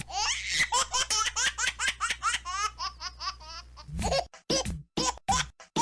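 A baby laughing, first in a tumbling run of giggles, then for the last two seconds in short, evenly spaced laughs about four a second.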